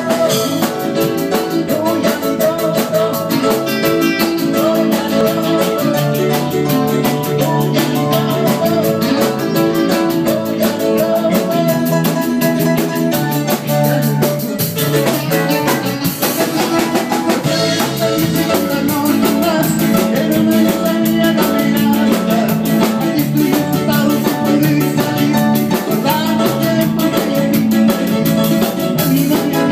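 A live band playing in a room: drum kit and electric guitars, with steady sustained low notes under a constant beat.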